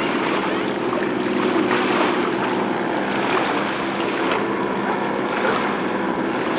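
Watercraft engine running steadily at constant speed, over rushing water and wind on the microphone.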